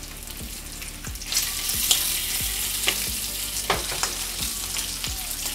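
Bacon strips sizzling in a hot ridged grill pan as they are turned with metal tongs. The sizzle grows louder about a second in, and the tongs click against the pan about five times.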